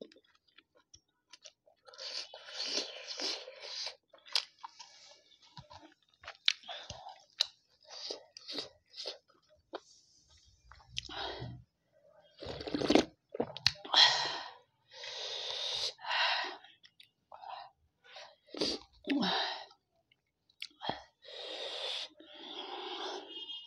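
Close-miked eating sounds: wet chewing of a steamed chicken momo in short, irregular bursts, with a louder run of slurping and swallowing around the middle as soup is drunk straight from the bowl, then more chewing.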